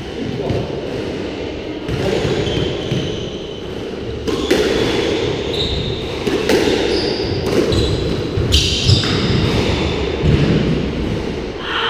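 Squash rally: a hard rubber ball smacking off rackets, walls and the floor every second or two, echoing in the enclosed court, with short squeaks of court shoes on the wooden floor.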